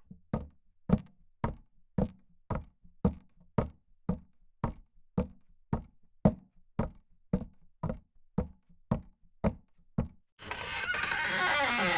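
Steady knocking: about eighteen evenly spaced, sharp knocks at just under two a second. Near the end a loud rushing sound with shifting pitches cuts in abruptly.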